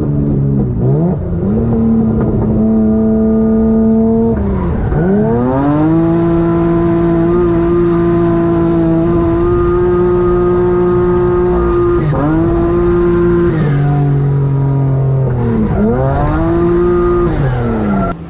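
A drift car's engine held at high revs. Its pitch dips sharply and climbs back again about five times, with long steady stretches between.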